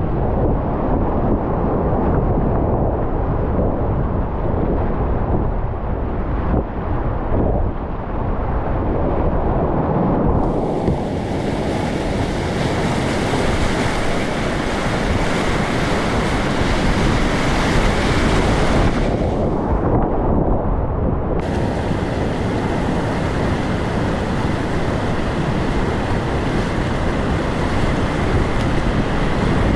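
Loud, steady rush of whitewater rapids, with wind buffeting the microphone.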